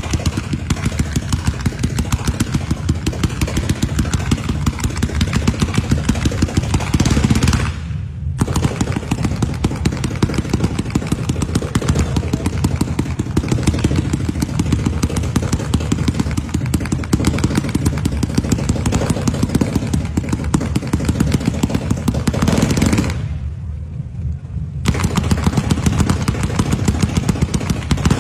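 A rapid-fire firework barrage: a continuous fast rattle of launches and bangs, many a second, like machine-gun fire. Twice it briefly dulls, about eight seconds in and again around twenty-three seconds.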